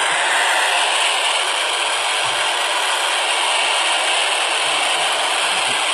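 Steady static hiss from a Baofeng UV-5R handheld radio with its squelch open: an FM receiver on the ISS downlink with no voice coming through, between the astronaut's transmissions.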